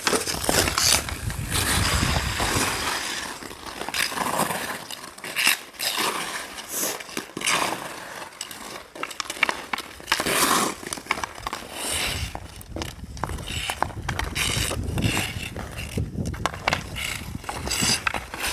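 Hockey skate blades carving and scraping on outdoor ice, with the stick blade clicking against the puck and ice during stickhandling: many sharp clicks over continuous scraping.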